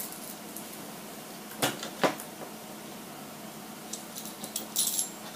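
Small hard clicks and taps of metal screws, parts and a screwdriver being handled on an RC truck chassis: two sharp clicks about two seconds in, then a brief light rattle of small ticks near the end.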